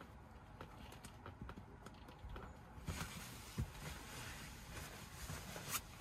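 Faint knocks and soft thumps of a person shifting about on the mattress and floor of a rooftop tent, with rustling that rises about three seconds in.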